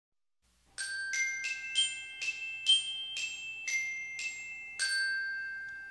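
Intro logo jingle: about ten bright, bell-like struck notes in a short chiming melody, starting under a second in at a little under two notes a second. The last note rings out and fades.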